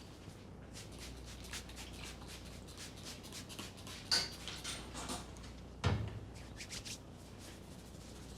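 Hands rubbing and working through hair and scalp in a head massage, giving a run of small crackling clicks. Two louder sharp snaps come about four and six seconds in, the second with a dull low thump.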